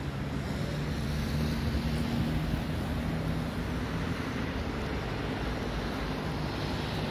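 Steady street traffic noise with wind rushing on the microphone and a faint low engine-like hum running through it.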